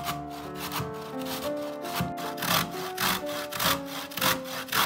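Rhythmic rasping strokes of food preparation, about two a second and louder from about two seconds in, over soft background music.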